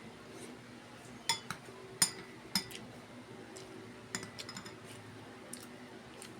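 Eating utensils clinking against dishware, about half a dozen sharp, ringing clinks, with a cluster of lighter taps near the middle, over a faint steady hum.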